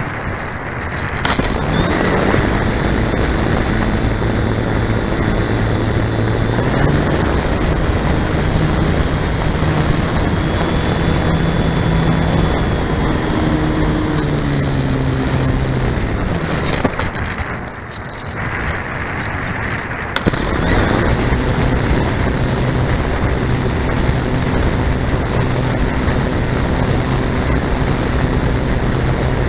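Onboard sound of a radio-controlled model airplane's electric motor and propeller running under throttle, with wind rushing over the microphone. The motor spools up about a second in and its pitch steps up and down with throttle changes. It cuts back for about three seconds past the middle, then comes back on.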